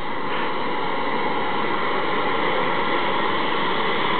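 Air ambulance helicopter starting up on the ground, its turbine engines running with a steady whine over a rushing noise as the main rotor turns below flight speed. A higher steady tone joins about a third of a second in.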